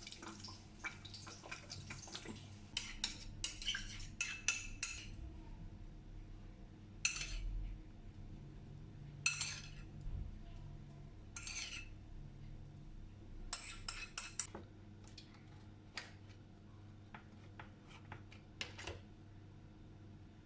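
Dishes and metal cutlery clinking and clattering as they are handled, in clusters of sharp clinks with pauses between, plus a few short scraping sounds.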